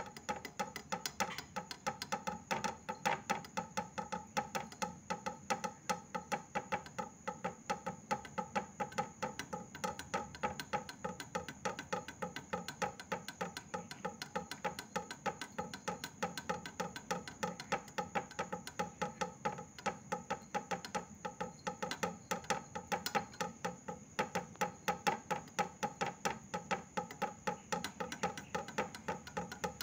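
Background music with a quick, even percussive beat, about four strikes a second.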